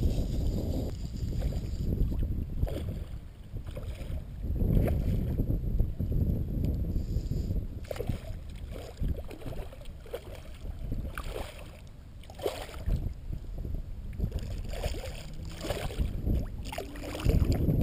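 A hooked redfish splashing and thrashing at the surface of shallow water as it is drawn in, a string of short splashes that come thicker in the second half, over a steady low rumble.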